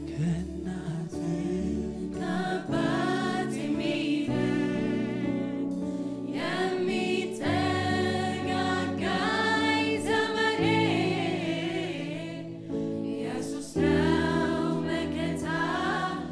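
Mixed choir of women's and men's voices singing an Amharic gospel worship song in harmony, with a live band's sustained low notes underneath.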